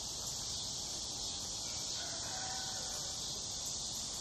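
Steady high-pitched drone of insects, with a faint, distant rooster crowing from about halfway through.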